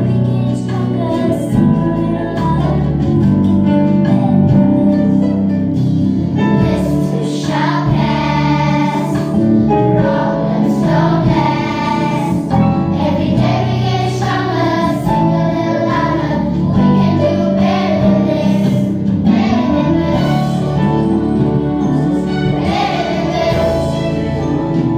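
A children's choir singing a gospel-style song over instrumental accompaniment; the sung melody comes forward about seven seconds in.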